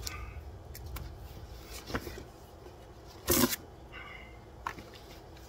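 Cardboard shipping box being torn open by hand: a few light scrapes and rustles, then a short, loud rip about three seconds in as the cardboard tear strip is pulled.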